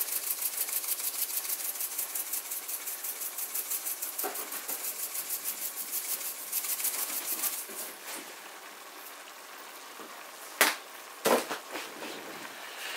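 Rosemary being rubbed and crushed between the palms over a pot: a quick, rhythmic dry rustling that fades out after about seven seconds. Two sharp knocks follow about eleven seconds in.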